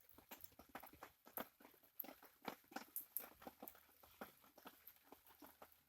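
Faint, irregular clicks and scrapes of hands handling wire leads at a scooter's starter relay.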